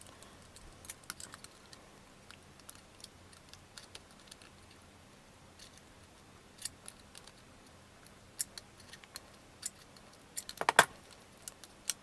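Small scattered clicks and taps of a plastic toy record-player mechanism being handled and worked with a small tool while a thin metal contact strip inside is bent back into shape, with a louder cluster of clicks near the end.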